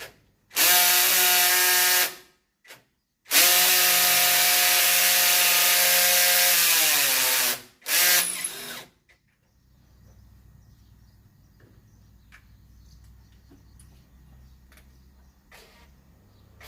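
Handheld electric power drill run in three bursts, the longest about four seconds, winding down in pitch as it is released. It is being used to try to free the fastenings of an old motorcycle exhaust. After about nine seconds only a faint low hum remains.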